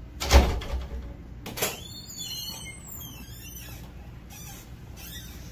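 A door opening: a heavy clunk, a lighter clack about a second later, then faint high squeaking.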